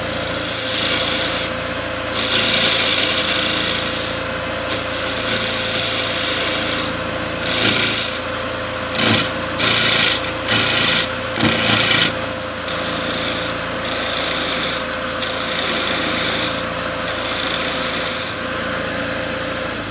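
Wood lathe running with a steady motor hum while a lathe knife fitted with a bolted-on carbide radius cutter shears a spinning wooden spindle. The cutting makes a hissing scrape that comes and goes with each pass, with a run of short, louder cuts about halfway through.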